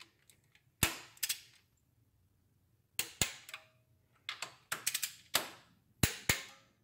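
Click-type torque wrench snapping as cylinder head bolts on a Mini Cooper 1.6 N16 engine reach 22 lb-ft, on a second pass through the tightening sequence. About a dozen sharp metallic clicks, some in quick pairs, with a pause near two seconds in.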